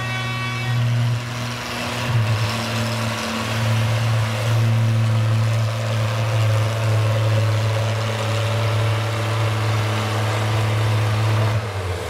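Oliver Super 77 tractor's six-cylinder engine running steadily under load as it pulls a weight-transfer sled. The engine note shifts slightly about two seconds in and drops lower just before the end. A high steady tone dies away within the first second.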